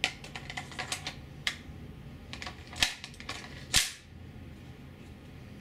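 Sharp clicks and snaps of a Tiberius T8.1 paintball pistol being handled and loaded. A run of small clicks comes first, then stronger snaps about one and a half, three and four seconds in; the last is the loudest.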